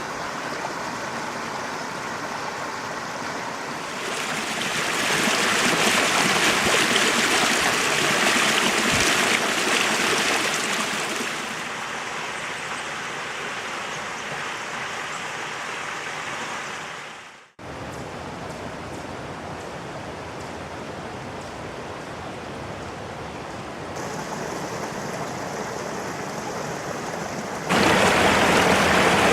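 Gorge stream rushing steadily over rocks. It swells louder about four seconds in, eases back after about twelve seconds, cuts out briefly around the middle, and grows louder again near the end.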